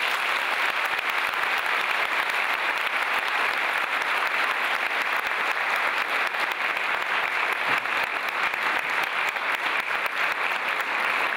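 A large audience applauding steadily: many hands clapping in a dense, even patter that holds at one level throughout.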